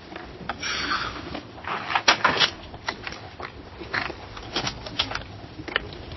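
Office activity without talk: scattered small clicks and knocks, with two louder stretches of rustling, the first a little after the start and the second, the loudest, about two seconds in.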